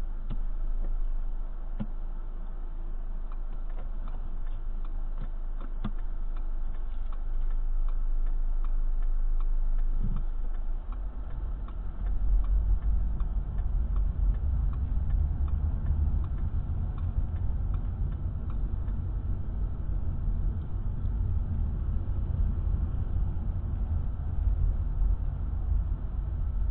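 Steady ticking of a car's turn-signal indicator heard inside the cabin while the car turns at an intersection. About twelve seconds in, a low engine and road rumble grows louder as the car speeds up.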